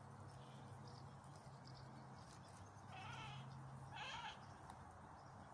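Two short animal calls, about a second apart, a little past the middle, over a faint steady low hum.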